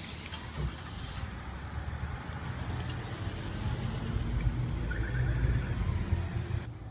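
Low, steady motor vehicle engine rumble that grows louder about four seconds in, then eases off near the end.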